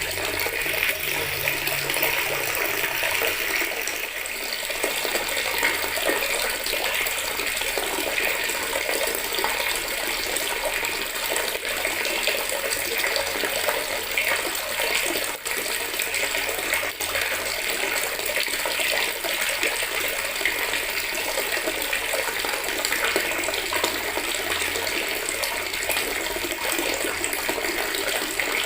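Water from a tap running steadily into a plastic bucket, splashing and gurgling into the water already in it.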